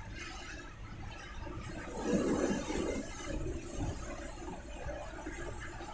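Inside a Scania bus driving through heavy rain: a steady low engine and road rumble under the hiss of rain and spray on the windscreen, with a louder rush about two seconds in.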